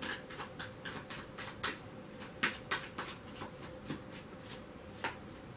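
A small deck of cards being shuffled by hand: a run of soft, irregular card clicks, a few of them louder.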